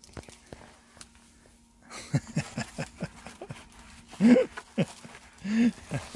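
A husky-type dog (Malamute/husky) vocalising: a quick run of short low grumbles, then two longer whining calls that rise and fall in pitch, the louder about four seconds in. Light crinkling and clicking from plastic wrap and a cardboard box being handled.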